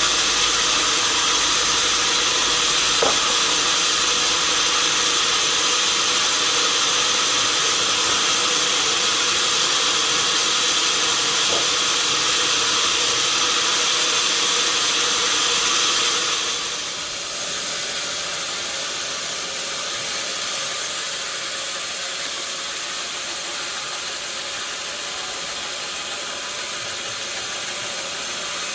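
Sawmill saw running with a steady hiss and high-pitched whine; about two-thirds of the way through the whine stops and the sound drops to a quieter, steady running.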